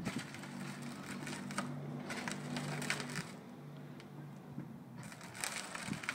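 Electric ride-on toy SUV driving slowly: its motors and gearboxes hum steadily, and its hard plastic wheels crackle over the concrete. The hum drops away after about three seconds.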